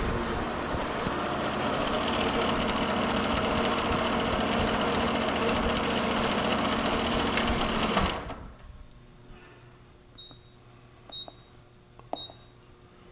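Bridgeport-type milling machine running with a steady hum and hiss, switched off about eight seconds in and going quiet fast. After it come a few light clicks and three short high beeps about a second apart.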